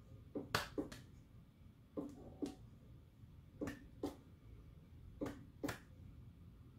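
Pairs of short, sharp percussive clicks, the two about half a second apart, the pair repeating evenly about every one and a half seconds.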